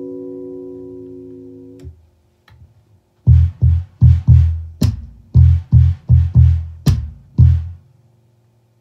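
Electric bass guitar: held notes ring and fade out about two seconds in, then after a short pause comes a string of about eleven short, punchy low notes played percussively.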